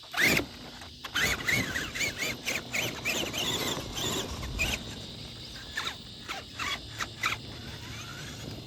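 Traxxas Summit RC truck's stock electric motor and drivetrain whining, the pitch rising and falling with the throttle. Scattered knocks and clatter come through as the truck works over sand and obstacles, with a sharp knock just after the start.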